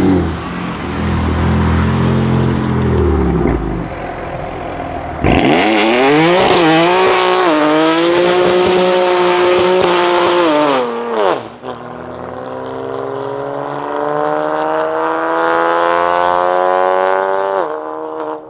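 Tuned BMW M3 F80 twin-turbo straight-six with a straight-piped Milltek exhaust, revving hard in cut-together clips: a drive-off, then burnouts with a wide tyre-spin hiss under the wavering engine note. The engine note then climbs steadily for several seconds before dropping, with a few sharp pops near the end.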